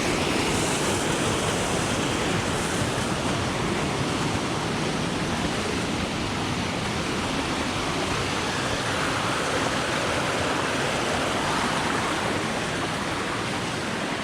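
Waterfall cascading over rock at close range: a steady, loud rush of falling water.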